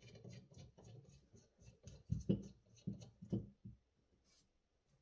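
Faint clicks and scrapes of a brass fitting being turned by hand into the metal body of a Bosch K-Jetronic warm-up regulator, with a few louder soft knocks of the part being handled in the middle.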